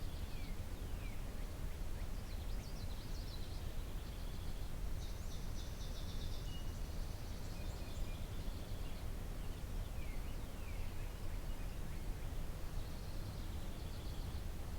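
Songbirds singing outdoors: repeated trills and quick downward-sweeping notes from more than one bird, over a steady low rumble of background noise.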